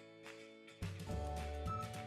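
Background music: a soft stretch of held tones, then a bass line and beat come in a little under a second in, with a high melody line near the end.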